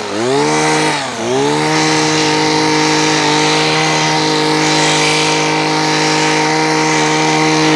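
Kawasaki TJ23V two-stroke hedge trimmer engine running at high revs while its blades cut through weeds and vines. The revs drop and pick up again twice in the first second or so, then hold at a steady high pitch.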